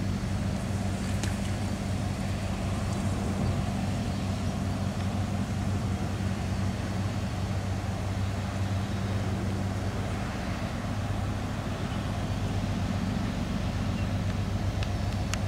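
Diesel engine of a general cargo ship passing close by, running with a steady low hum.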